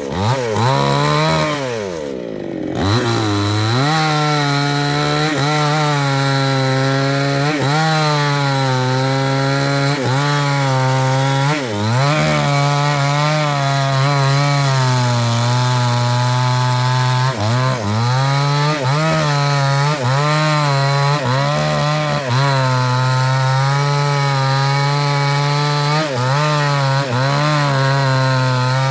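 New West 628 two-stroke chainsaw at full throttle, its 24-inch bar cutting through a thick sengon trunk. The engine eases off about two seconds in and the pitch falls, then it revs back up and holds high, dipping briefly every second or two as the chain bogs in the wood and recovers.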